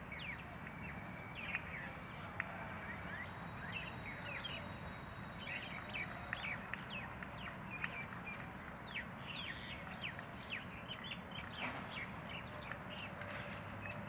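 Wild birdsong: many short, quick, downward-sweeping chirps from several small birds over a steady background hiss. A thin, steady high tone holds for about three seconds partway through.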